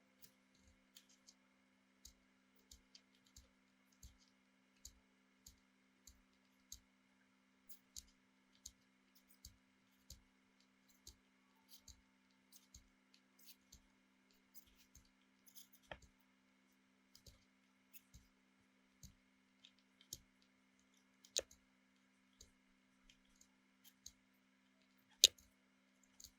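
A run of small, sharp, irregular clicks and taps, about one or two a second, with a louder click near the end, over a faint steady hum.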